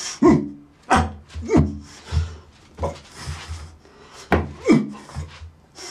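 A man grunting and panting in short, sharp bursts with breathy exhales as he lunges and shadow-boxes, with a sharp knock about four seconds in.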